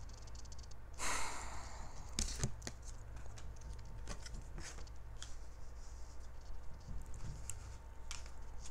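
A person sighs, a short breathy exhale about a second in, followed by scattered soft clicks and taps of small handling sounds over a steady low hum.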